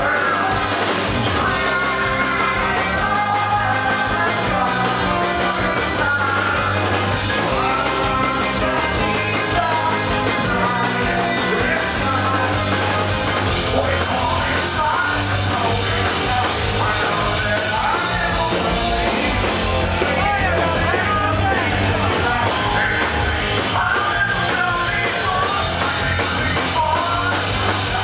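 A rock band playing live at full volume: sung and shouted vocals over guitar, bass and drums, heard through a camera microphone in the crowd.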